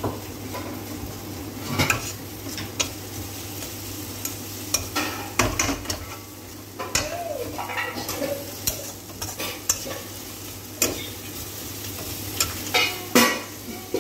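Onion-tomato masala with chilli powder sizzling in a metal kadai on a medium gas flame while a metal spatula stirs and scrapes it, with irregular sharp clinks of the spatula against the pan.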